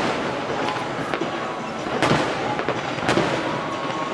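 Fireworks display: aerial shells bursting with sharp bangs at the start, about two seconds in and again about three seconds in, with a steady wash of noise between.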